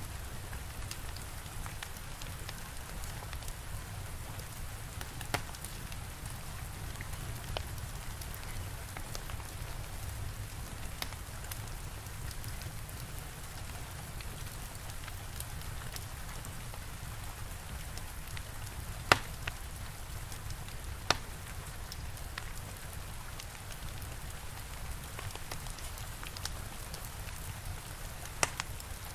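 Steady rain hiss with a low rumble underneath, and a wood fire crackling with occasional sharp pops, the loudest a little past the middle and a pair near the end.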